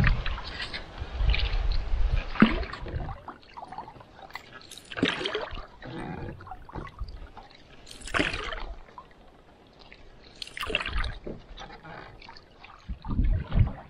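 Lake water sloshing and trickling close to a paddled canoe, swelling about every two and a half to three seconds in time with the paddle strokes.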